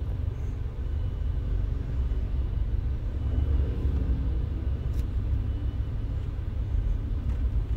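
Steady low rumble of a Subaru Forester's road and engine noise, heard from inside the cabin while the car is being driven.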